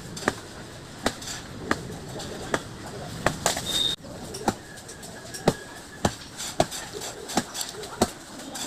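Wood being chopped by hand: a series of sharp single strokes, about one or two a second, irregularly spaced.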